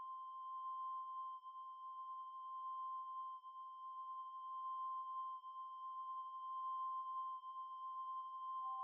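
A steady, high, nearly pure electronic tone from a film's sound design, with a faint flutter around it. Near the end a second, lower tone comes in beneath it.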